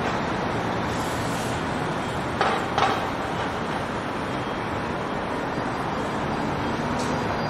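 Steady traffic and rail noise, with two short sharp knocks about two and a half seconds in.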